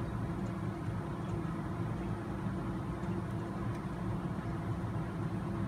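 Steady low hum of room machinery, such as ventilation or air conditioning, at an even level. A few faint light ticks come from small RC axle parts being handled.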